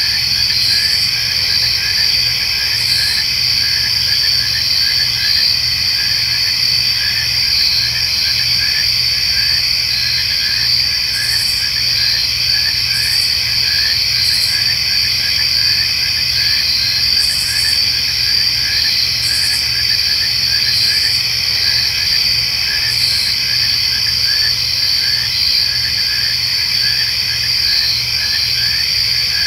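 Crickets and other insects chirping in a steady dusk chorus: a continuous high trill, a lower chirp repeating about three times a second, and now and then a short higher buzz.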